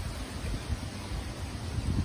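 Storm wind gusting through trees, rustling the leaves and buffeting the microphone with an uneven low rumble.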